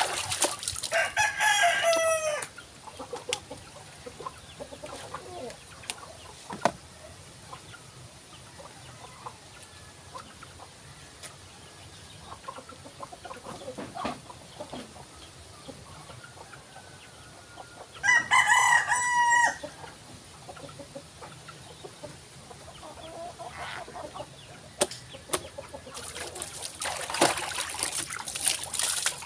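A rooster crows twice, about 18 seconds apart, each crow lasting about two seconds. Near the end, water is poured from a plastic dipper and splashes down.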